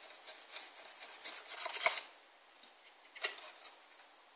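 Drill bit twisted by hand into the edge of a model jet's wing panel to bore a hinge hole: a run of quick scratchy rasps and clicks, loudest near the two-second mark, then one sharp click a second or so later.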